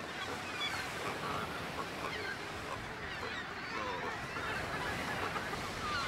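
A Cape cormorant colony calling: many short honking calls overlap in a steady chorus, over a faint hiss.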